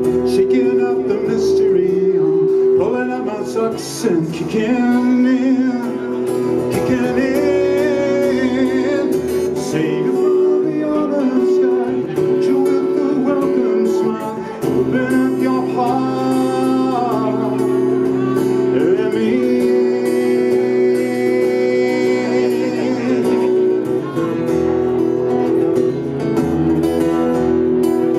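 A man singing while playing an acoustic guitar, a solo vocal-and-guitar song performed live.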